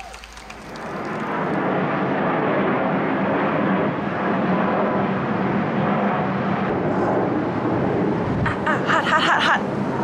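Strong wind buffeting the camera's microphone: a loud, steady rushing rumble that sets in about a second in.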